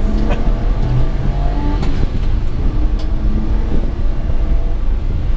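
Inside the cab of a moving 1993 Honda Acty kei truck: its 660cc three-cylinder engine runs under a steady low road rumble, its note shifting a little, with a couple of faint clicks.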